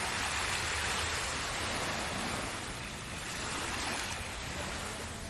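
Ocean surf washing in: a broad hiss of breaking waves that swells near the start and again about three to four seconds in, over a steady low rumble.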